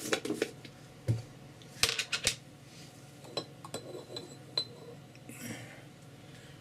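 Small clicks, knocks and light clatter of a glue pot and brush being picked up and set down on a bench, with a brief scrape near the end.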